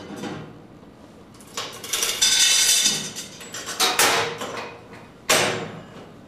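Metal pipe clanking and scraping against a band saw's vise and its clamping chain as the pipe is handled and reclamped. There are a few sharp knocks, a longer ringing scrape about two seconds in, and single clanks about four and five seconds in.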